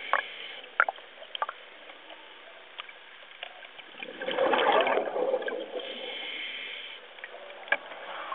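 Water sloshing and gurgling around a camera at the water's surface, muffled as if heard through water, with a few sharp clicks. A louder rush of bubbling water comes about four seconds in and lasts over a second.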